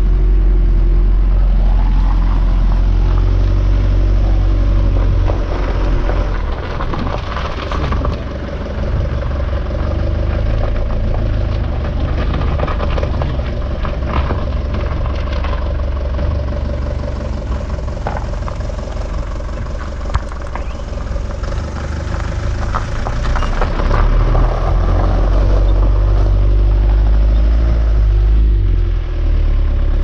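Diesel camper van's engine running on the move, heard from inside the cab, with a heavy low rumble, tyre noise over a rough gravel street and scattered rattles and knocks from the cab.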